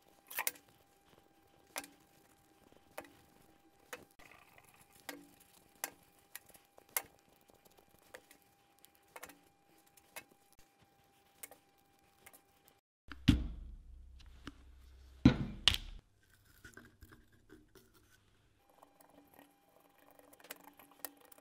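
Small steel workpieces (machined clamp blocks, hex nuts and cap screws) being handled and set down, making short light clicks and clinks about once a second, with two louder knocks about two-thirds of the way through.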